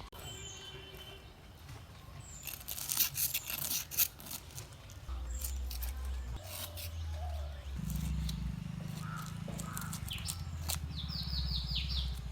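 A metal spoon scraping scales off a large snakehead fish in short strokes, densest in the first few seconds. Birds chirp, with a quick run of calls near the end, and a low hum comes in about five seconds in.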